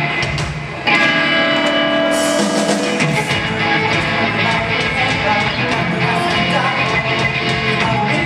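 School rock band playing live on electric guitars and drum kit, the full band coming in loudly about a second in.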